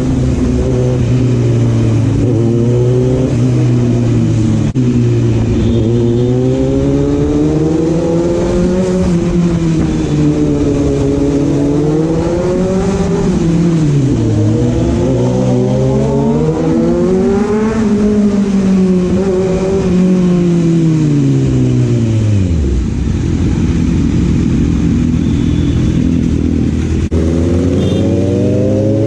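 Kawasaki Z900's inline-four engine running under way, its revs repeatedly climbing and falling as the bike accelerates and shifts. Late on the revs fall away steeply, then climb again near the end.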